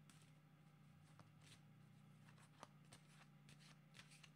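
Faint, irregular soft clicks and riffles of a deck of oracle cards being shuffled by hand, over a steady low hum.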